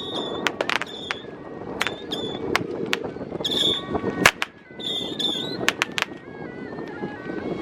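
Firecrackers going off in irregular sharp cracks, one louder bang about four seconds in, over a steady low rumble, with faint high pitched tones stepping up and down behind them.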